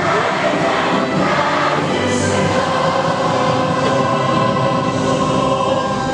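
A large group of young girls singing together as a choir, many voices holding long notes.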